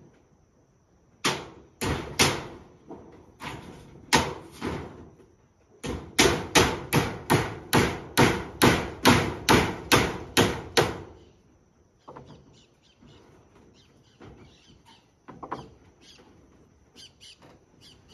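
Hammer blows on a roof, driving nails: a few spaced strikes, then a steady run of about two blows a second for some five seconds, then fainter, scattered taps.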